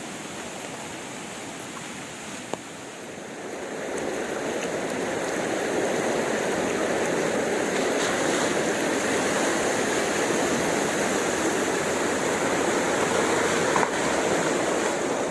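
Water rushing and splashing down the tiers of a rain-swollen waterfall, a steady rush that grows louder about four seconds in.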